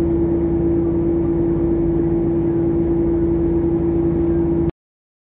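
Ship's machinery droning steadily on board, a strong low hum over a rumbling noise bed. It cuts off suddenly near the end.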